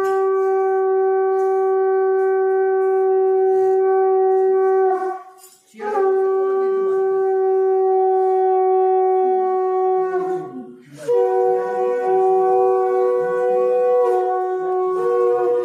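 Conch shell (shankha) blown in three long, steady blasts with short breaks between them, the third a little higher in pitch. It is the ritual conch call of a Hindu wedding rite.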